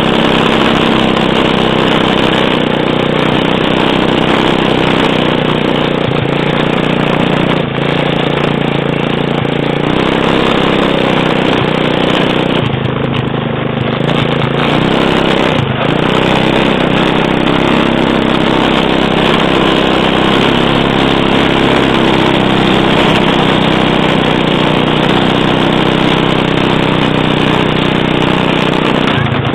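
Small 110 cc quad bike (ATV) engine running continuously, its pitch shifting a little with the throttle.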